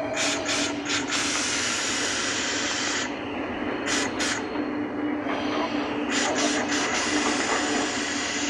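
Diesel locomotive running, heard from inside its cab: a steady drone with a held low tone, broken by loud bursts of hissing, a few short ones then longer stretches.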